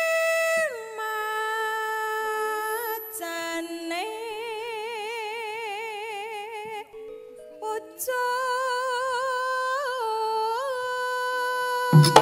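A Javanese sinden (female gamelan singer) singing a solo, unaccompanied melismatic passage: long held notes that slide from pitch to pitch, with wide vibrato in the middle and a brief break about seven seconds in. Drum strokes come in right at the end.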